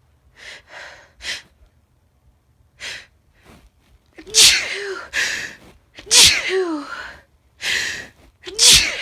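A woman sneezing hard three times, about two seconds apart, each sneeze preceded by a sharp, catching inhale. The first few seconds hold short, quieter breaths as the sneeze builds.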